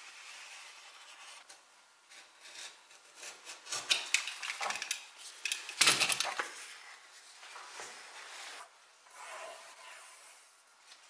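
A utility knife scraping through cardboard and the cut cardboard template being handled, with a few sharp clattering knocks between about four and six seconds in, the loudest near six seconds. Near the end a pencil scratches along the template's edge as it is traced onto a board.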